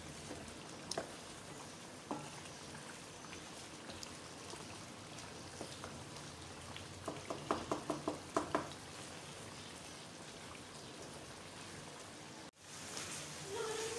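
Chicken, potato and yogurt-masala gravy sizzling and bubbling in a pot as it is fried down, with scattered small pops. A quick run of light taps comes about halfway through.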